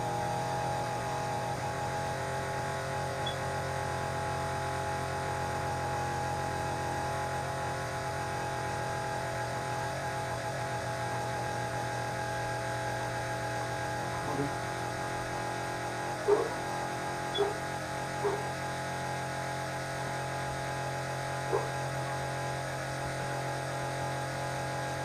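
Carpet-cleaning machine running with a steady droning hum, with a few short faint sounds in the second half.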